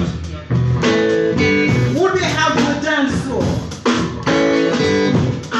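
Live blues band playing loud, with guitar leading over drums and bass; the notes bend up and down.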